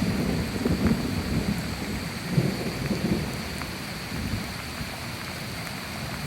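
Wind buffeting the microphone in gusts, a rumbling low noise that eases off after about four seconds, over a steady hiss.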